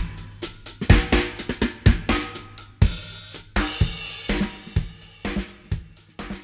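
Background music: a drum kit with snare, bass drum and cymbals playing a steady beat over a bass line, getting quieter toward the end.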